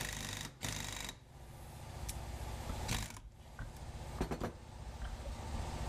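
Impact wrench hammering in short bursts as it drives a pulley down onto a power steering pump shaft with a pulley installer tool; the bursts stop about a second in, with one more short burst about three seconds in. A low steady hum comes in near the end.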